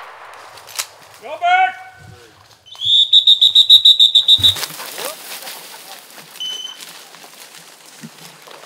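A loud, high-pitched pulsed signal tone, steady in pitch and beeping about nine times a second for nearly two seconds. About two seconds later comes one short, fainter tone.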